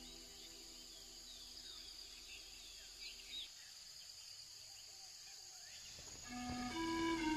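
Soft held music notes fade out in the first few seconds, leaving faint outdoor ambience: a steady high insect buzz and scattered short bird chirps. New melodic music comes in near the end.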